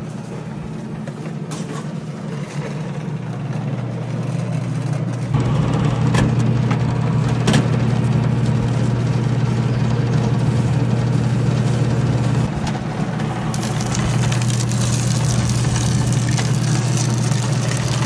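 Electric sugarcane juice press (moenda) running with a steady motor hum while it crushes a cane stalk between its rollers. The hum gets louder and rougher about five seconds in.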